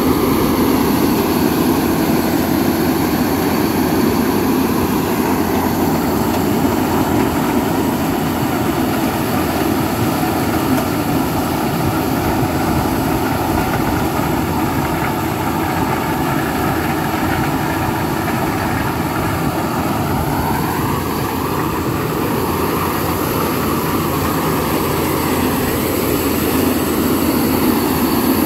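Combine corn harvester running as it cuts and threshes standing corn: a steady loud engine and machinery drone. The engine note sags over the first several seconds, holds, then climbs back up about twenty seconds in.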